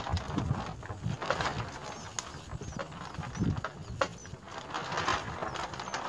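Rustling and scratching as a small mother bird shifts over her chicks in a twig-and-grass nest, with irregular clicks and a few faint, short high chirps in the middle.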